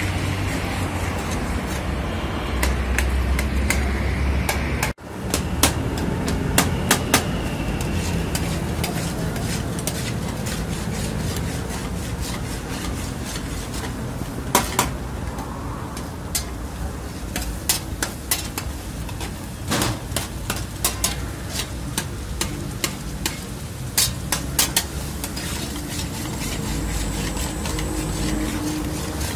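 Metal spatula and tongs stirring and scraping chicken karahi in a metal karahi pan, with frequent irregular clinks of metal on metal over a steady sizzle of the bubbling gravy.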